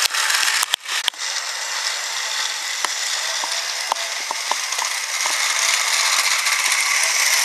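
Battery-powered Trackmaster Thomas toy train's small motor and plastic gearbox whirring steadily as it runs along the track, with light clicks from the wheels and a few sharp clicks and a brief drop about a second in.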